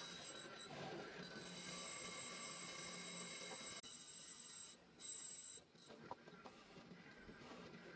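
Faint, steady rasping and rubbing against wood, easing off with a brief break about five seconds in.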